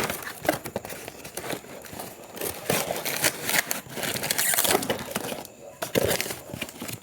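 Packaging being unwrapped by hand: an irregular run of crinkling, crackling rustles, with a short lull about five and a half seconds in.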